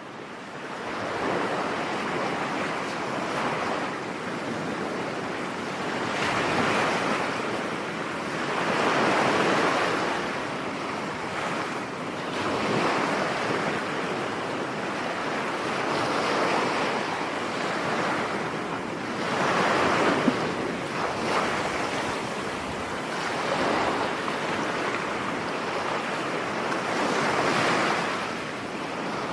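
Ocean surf: waves breaking and washing in, the sound swelling and easing every few seconds. It fades in over the first second or so.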